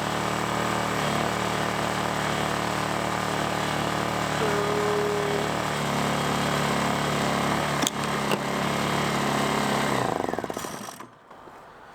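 Lifan ESI860i-CA's small 40cc gasoline inverter-generator engine running steadily and freakishly loud, its engine speed shifting about a second in and again near six seconds. After a couple of clicks the engine shuts off at about ten seconds and runs down to a stop.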